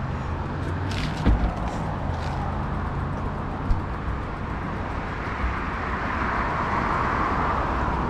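Wind and rolling noise of a bicycle riding along a concrete sidewalk, with road traffic beside it. There are a couple of knocks about a second in, and a passing car's tyre noise swells near the end.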